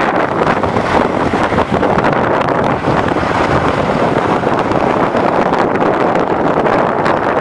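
Steady rushing noise of wind buffeting the microphone of someone skiing downhill, mixed with skis sliding and scraping over groomed snow.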